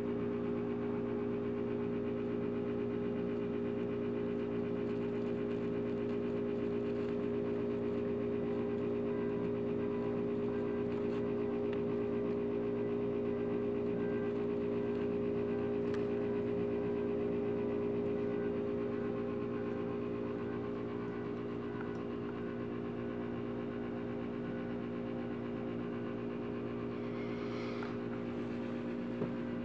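Steady mechanical hum made of several fixed tones, unchanging throughout, easing a little in level about two-thirds of the way in.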